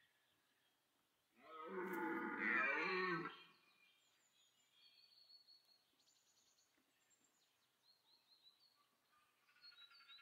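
A red deer stag gives a single rutting roar, about two seconds long, a little over a second in.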